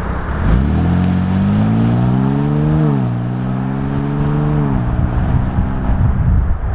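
Ford Bronco Raptor's twin-turbo 3.0-litre V6 accelerating: the engine note climbs in pitch, drops sharply at an upshift about three seconds in, climbs again and drops at a second upshift near five seconds, then holds steady.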